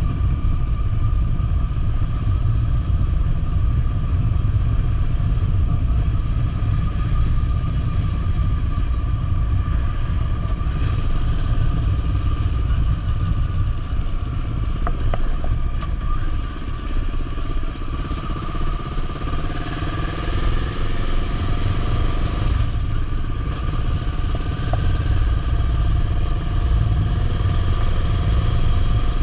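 Motorcycle running while being ridden, with heavy low-pitched noise and an engine note that shifts in pitch about two-thirds of the way through.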